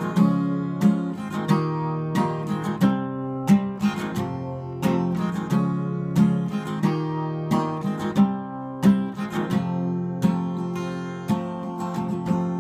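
Acoustic guitar strummed in a steady rhythm, the chord changing every second or two.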